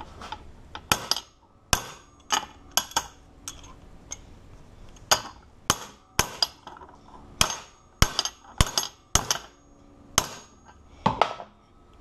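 Irregular sharp metal clinks and knocks, about fifteen of them with short pauses between, from the cracked hardened-steel ABUS 83/80 padlock and its shackle being handled.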